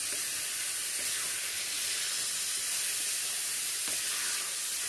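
Carrot halwa sizzling in a metal kadhai on the stove as a spatula stirs it: a steady hiss, with a faint scrape of the spatula about a second in and again near the end.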